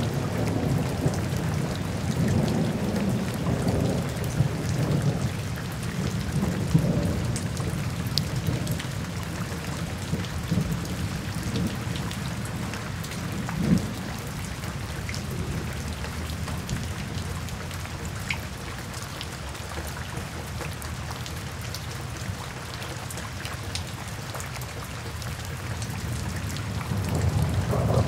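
Steady rain falling on foliage, with scattered close drops ticking, one sharper tick about halfway through. A low rumble of distant thunder swells over the first several seconds, fades, and builds again near the end.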